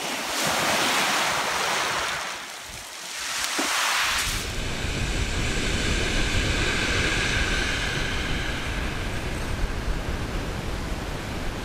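Sea waves surging in and drawing back, twice in the first few seconds. Then a steady rush of surf with wind rumbling on the microphone.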